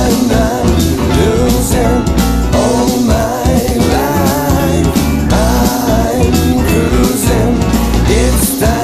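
Jazz-funk band music: bass guitar, electric guitar and keyboards over a steady beat, with a gliding melody line on top.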